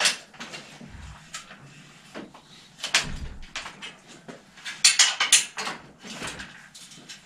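Hand tools working on a bicycle at the rear wheel hub: a handful of separate sharp metallic clicks and knocks.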